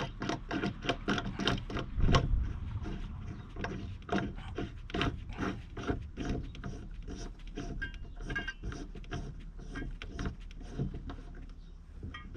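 Millennium Marine R300 rod rack's aluminum upright being tightened into its threaded mounting bracket: a fast, irregular run of metal clicks and rubs, with the loudest knock about two seconds in.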